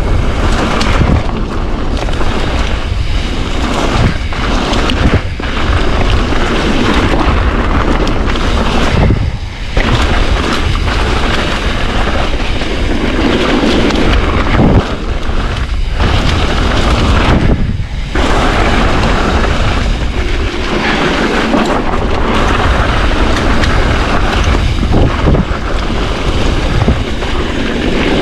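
Wind buffeting the microphone of a mountain bike's camera on a fast descent, mixed with tyre noise over a gravel-surfaced trail; a couple of brief lulls where the rush drops away.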